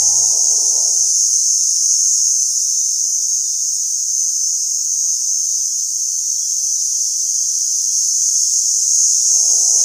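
Dense, steady, high-pitched chorus of forest insects. A faint tune is heard under it in the first second and comes back near the end.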